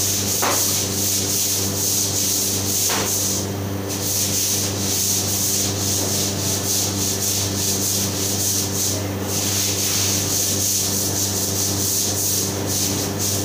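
Continuous scratchy scrubbing over the steady hum of commercial kitchen machinery.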